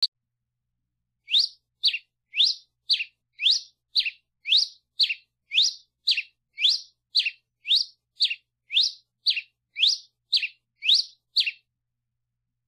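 Red-crested finch (Coryphospingus cucullatus) singing a long series of short, high, clear notes, about two a second. The notes alternate between a quick upward sweep and a downward slur. The song starts about a second in and breaks off near the end.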